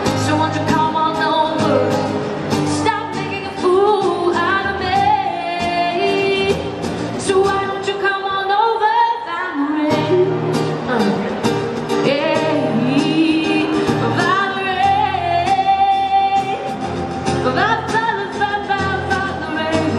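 Woman singing a pop song live through a microphone, accompanied by a strummed acoustic guitar.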